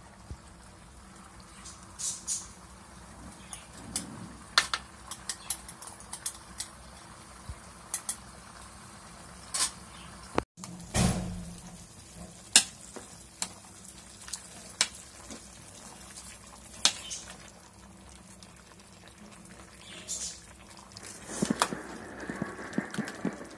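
Steel spoon clinking and scraping irregularly against a large steel bowl while a thick spiced yogurt marinade is stirred through raw chicken pieces.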